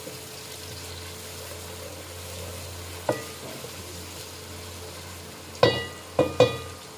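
Sliced onions and garlic frying in ghee in a metal pot: a steady sizzle as a wooden spoon stirs them. The spoon knocks against the pot once about three seconds in and three times near the end, each knock loud and ringing briefly.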